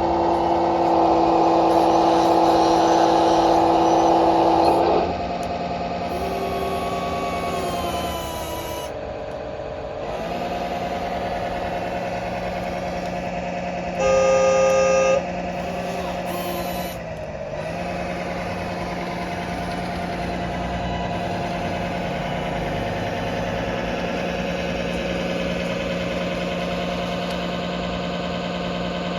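Simulated excavator engine sound from the RC model's sound-controller speaker, running steadily; its pitch dips and recovers twice. A louder horn-like tone fills the first five seconds, and a short loud horn blast comes about halfway through.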